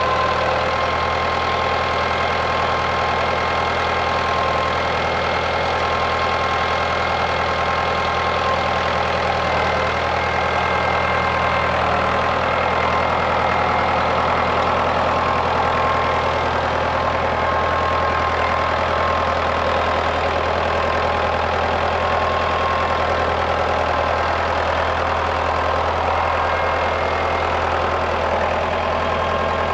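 Minneapolis-Moline 605 HEB engine running steadily at an even, unchanging speed, freshly started.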